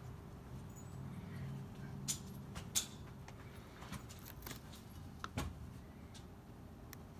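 A fire of hardwood pressed-log pucks burning in a wood stove: a low steady rumble with irregular sharp pops and crackles, the loudest about two and three seconds in and a close pair a little past five seconds.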